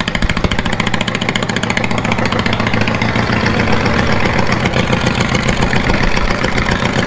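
Riding lawn mower engine running through two open straight exhaust pipes: a loud, steady stream of rapid firing pulses that "sounds like crap". The unmuffled straight-pipe exhaust is what makes it so loud.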